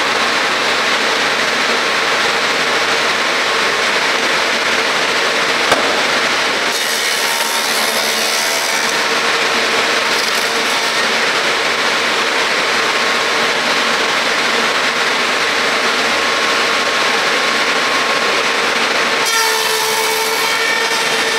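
ChS 4B notching machine for mini-timber running, its milling cutters spinning with a steady, loud whine. A brighter hiss rises about seven seconds in and again near the end as the cutters work into the timber.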